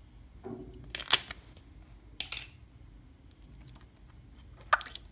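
Clear plastic slime container handled in the fingers, its compartments clicking and scraping as a lid is picked at: a sharp click about a second in, a short scrape a little past two seconds, and another click near the end.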